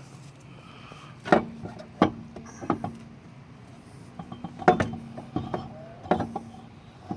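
Scattered sharp metal clinks and knocks from tools and brake parts being handled at a car's wheel hub during a brake job, about five strikes a second or so apart, over a faint steady hum.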